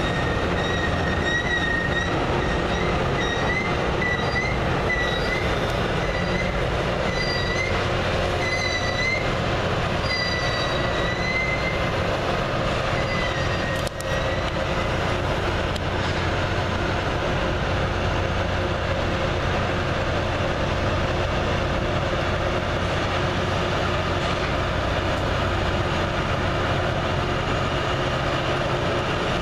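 Loram rail grinder train running across a steel truss railroad bridge: a steady rumble and roar, with a high, wavering wheel squeal over it for about the first twelve seconds.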